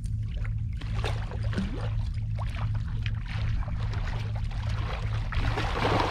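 Water sloshing and splashing against a small inflatable fishing boat in short irregular bursts, over a steady low rumble.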